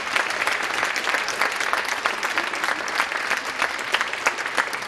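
Audience applauding: many hands clapping steadily after an operatic aria.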